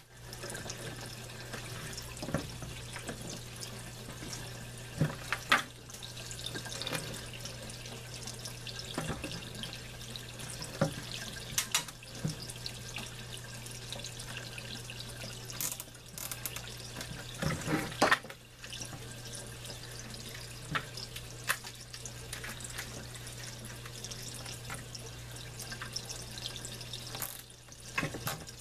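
Steady running water flowing into an aquaponics fish tank and its drain, over a steady low hum. Scattered clicks and rustles come from a clear plastic hose being zip-tied inside a plastic bucket.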